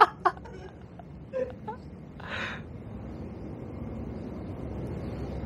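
Low steady rumble slowly growing louder through the second half, with a few light clicks, a brief murmured word and a short breathy hiss in the first two and a half seconds.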